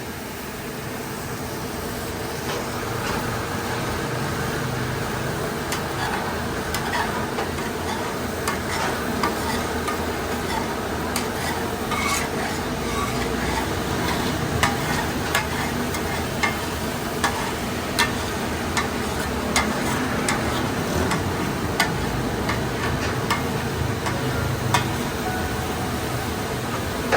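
Food sizzling in a hot pan while a metal spatula stirs it, clinking sharply against the pan about once a second.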